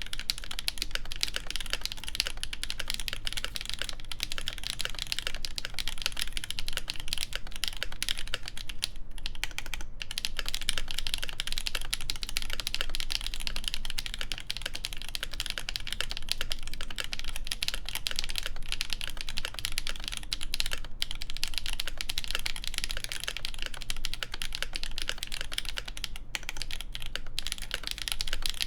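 Steady, rapid typing on an ASUS ROG Azoth mechanical keyboard fitted with lubed Gateron Duck switches, a full stainless steel plate and GMK keycaps. The keystrokes are dense and continuous, with a few brief pauses.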